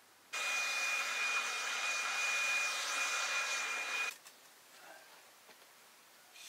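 Handheld cordless blower running for about four seconds, a steady rush of air with a high whine, aimed over a cedar-bark roof; it starts and cuts off suddenly.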